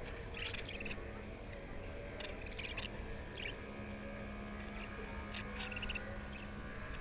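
Budgerigars chirping in about four short bursts of chatter, over a steady low hum.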